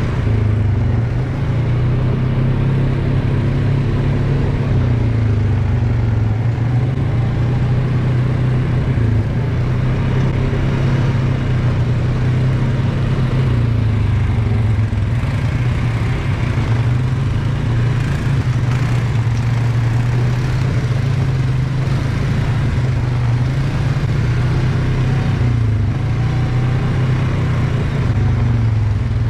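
ATV engine running while riding, a steady hum that rises and falls a little in pitch with the throttle.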